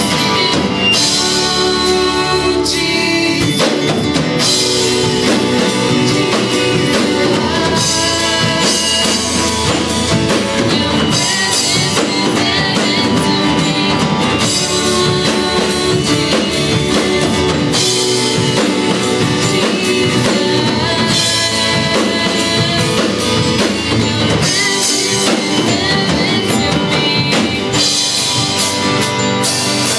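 Live band music: a woman singing into a microphone, accompanied by strummed acoustic guitars and a keyboard.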